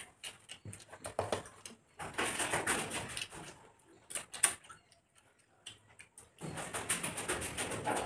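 Two people eating khichuri with their hands: chewing and smacking mouth noises and fingers scraping food across plates. The sounds come as scattered clicks, with two longer noisy stretches about two seconds in and again near the end.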